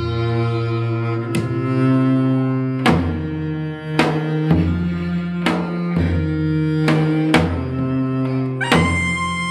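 Korean traditional quartet music: a dae-ajaeng bowing low held notes that shift pitch every second or so, punctuated by sharp janggu strokes. Near the end a high double-reed wind, piri or taepyeongso, comes in on a long held note.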